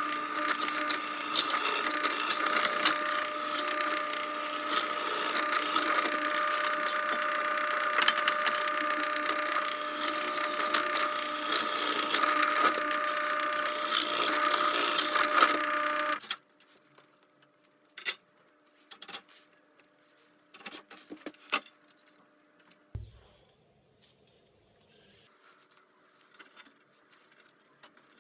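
Bench drill press running and drilling through aluminium extrusion: a steady motor hum with a hissing cutting noise for about sixteen seconds, then it cuts off suddenly. A faint tone fades away over the next few seconds, followed by light clicks as the metal extrusion is handled.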